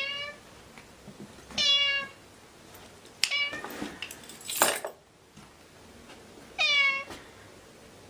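Domestic cat meowing four times, short meows spaced one to three seconds apart, with a brief noisier sound between the third and fourth.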